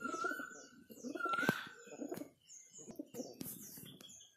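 A flock of pigeons cooing in repeated low pulses as they crowd in to feed from a hand, with sharp clicks and wing flutters among them. Short, high, falling chirps from small birds repeat over the top.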